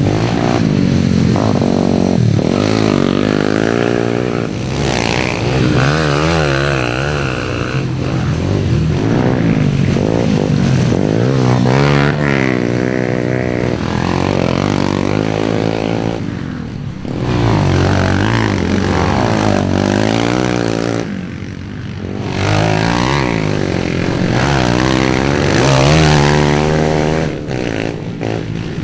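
Pit bike engines revving and backing off repeatedly as the bikes ride past through mud, the pitch rising and falling with the throttle. More than one bike is heard at once, with two short lulls near the middle.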